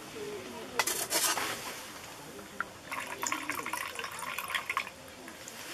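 Alcohol fuel poured from a small bottle into a Trangia spirit burner in a folding metal stove, trickling for a couple of seconds from about three seconds in. It follows a brief clatter of handling about a second in.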